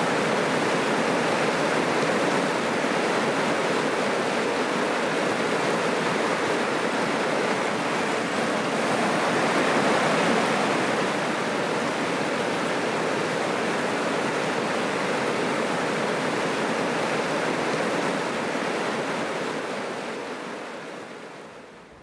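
Fast-flowing stream rushing over rocks, a steady even rush that fades away near the end.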